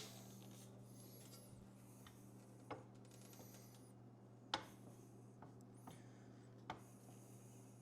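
Mostly quiet, with a steady low electrical hum and a few light clicks and knocks from handling tools and sheet metal, spaced a second or two apart.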